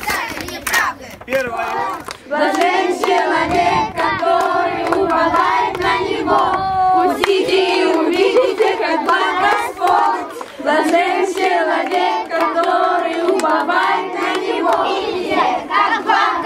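Many children's voices chanting together with hand clapping.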